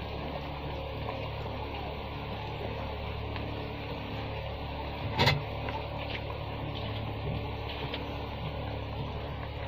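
Catfish and okra in gravy simmering in a wok as a wooden spatula stirs through it, over a steady low hum. One sharp knock about five seconds in, the spatula striking the pan.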